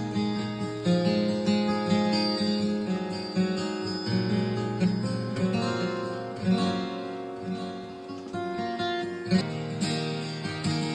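Background music: acoustic guitar picked and strummed, notes ringing over a steady bass line.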